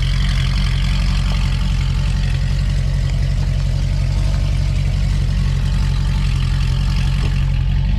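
C6 Corvette Grand Sport's 6.2-litre LS3 V8 idling steadily through aftermarket headers and an X-pipe exhaust, running on freshly installed MSD plug wires.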